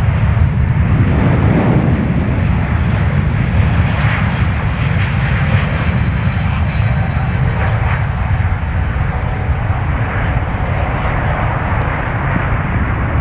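Airbus A350-1000's Rolls-Royce Trent XWB turbofans at takeoff thrust as the jet rolls, lifts off and climbs away: a loud, steady engine roar with a deep rumble that eases slightly near the end.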